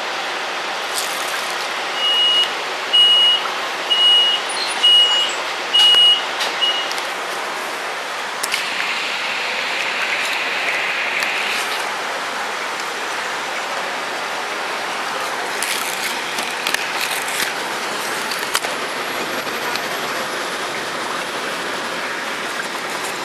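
Double-decker bus running on the road, a steady engine and road noise heard on board. About two seconds in, a series of five short, high electronic beeps comes roughly one a second.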